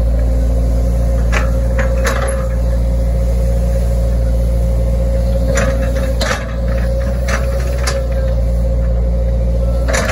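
Hitachi Zaxis 110 excavator's diesel engine running steadily with a steady whine over it, heard from the cab, with scattered short clicks and knocks as the arm and bucket work the grassy bank.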